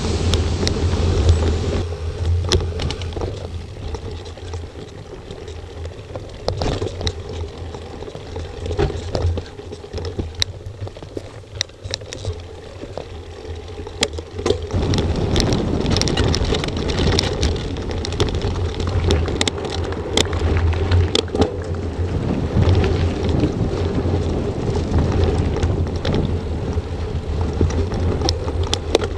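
Mountain bike ridden over gravel and dirt tracks, heard through an action camera's microphone: wind buffeting the microphone and tyre rumble, with many sharp knocks and rattles from bumps. The noise drops during a slow stretch before about halfway, then comes back louder as the speed picks up.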